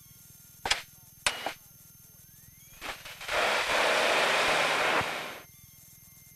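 Air traffic control radio audio with no words: two sharp transmitter clicks, then about 3 s in a loud burst of static hiss lasting two to three seconds that cuts off, over a faint steady tone.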